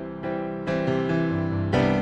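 Background music: soft piano or electric piano playing chords, a new chord struck about every half second to second.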